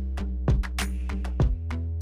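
Instrumental beat music with a steady deep bass line and drum hits, the kick drum landing twice.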